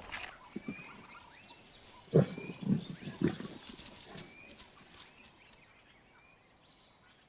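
Lion growling in three or four short, low grunts about two to three seconds in, with a bird chirping repeatedly in the background.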